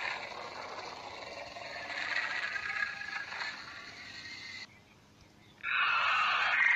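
Dinosaur sound effects played from a phone app. A long, noisy Carnotaurus call lasts about four and a half seconds and cuts off sharply. After a short silence, a briefer, higher Coelophysis call follows near the end.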